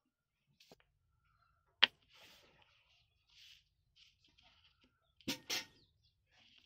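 Small wooden discs handled and set down on a table: a sharp click a little under two seconds in, then two quick knocks close together later on, with faint rubbing and scraping of wood under the fingers between.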